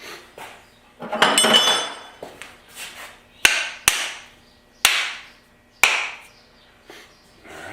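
A clatter of tools on a workbench about a second in, then four sharp knocks, roughly a second apart, as the small forged hammer head is driven onto its wooden handle.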